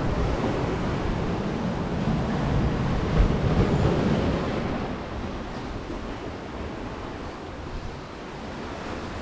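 Sea surf washing against the shore rocks, swelling a couple of seconds in and easing off after about five seconds.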